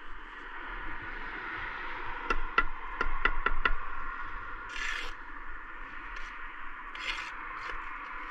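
Aluminium ladder being handled and moved: a quick run of about six sharp metallic clicks, then a couple of short scrapes.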